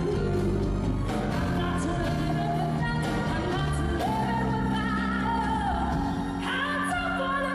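A female singer performing a soul ballad live with band accompaniment, holding long notes with vibrato over a steady low backing.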